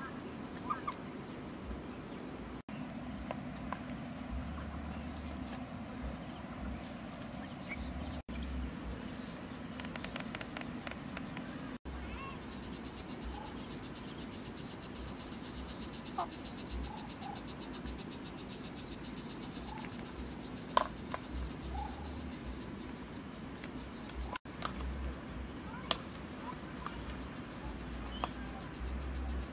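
Steady high-pitched insect chorus, with scattered short chirps and a few light clicks.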